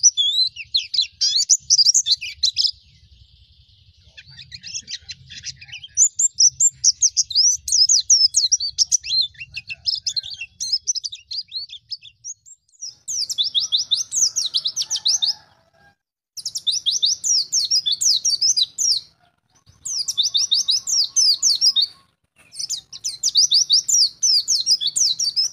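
White-eye (pleci ngalas) singing, a high, fast chattering song. In the second half it breaks into repeated bursts of very rapid notes, each two to three seconds long, with short pauses between them.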